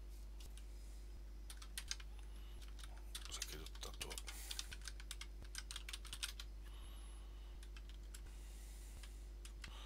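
Typing on a computer keyboard: quick runs of keystrokes starting about a second and a half in, a pause, then a few more keystrokes near the end, over a steady low hum.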